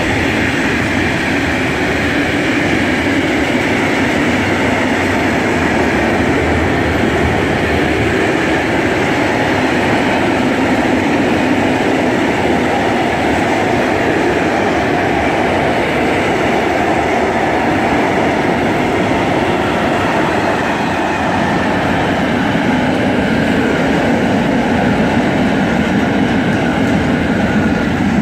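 Long freight train of tank wagons and powder-hopper wagons rolling past close by at speed: a steady, loud noise of steel wheels running on the rails.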